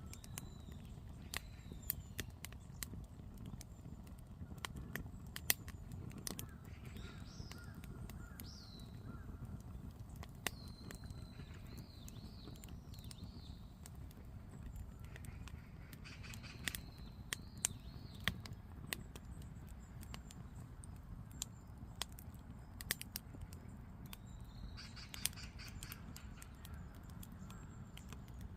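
Firewood burning, crackling with irregular sharp pops over a low steady rumble; birds call now and then in the background.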